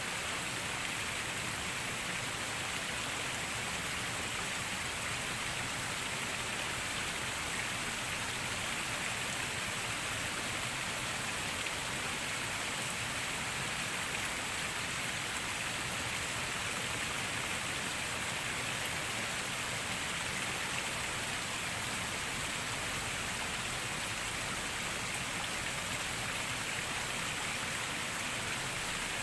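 Steady rain falling: an even hiss with no breaks or separate sounds.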